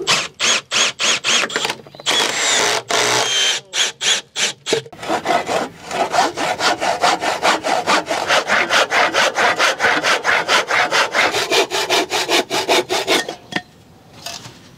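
Hand saw cutting through a wooden board: a few slower, uneven strokes at first, then a fast, steady run of strokes that stops about a second before the end.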